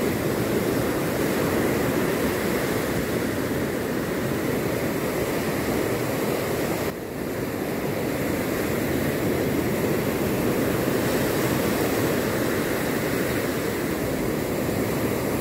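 Heavy surf breaking and washing up a beach in a steady rush, dipping briefly about halfway through.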